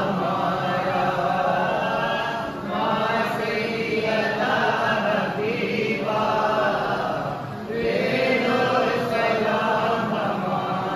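A group of men chanting a devotional Salam together in unison, phrase by phrase with short breaks between the lines.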